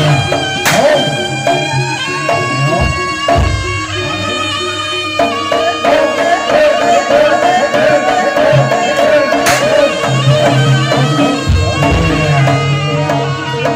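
Live East Javanese jaranan music: a held wind melody over repeated drum strokes and low gong-like beats.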